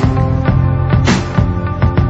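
Background music: sustained chords over a steady beat, with a sharp hit about once a second.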